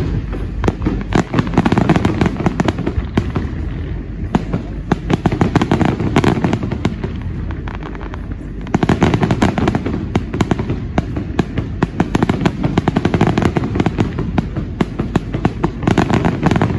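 Aerial fireworks display: shells bursting with a dense run of rapid pops and bangs, coming in louder waves a few seconds apart.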